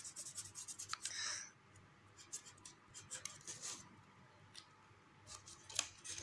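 Felt-tip sketch pen scratching on paper in quick short strokes for about the first second and a half. After that, faint paper rustles and light taps.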